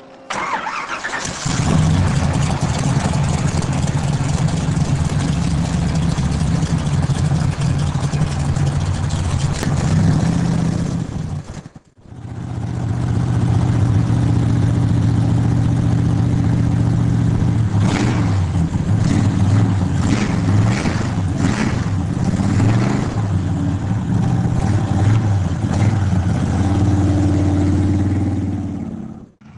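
Corvette V8 running at a loud idle. The sound breaks off about twelve seconds in and picks up again, and the engine is revved several times in quick blips in the second half.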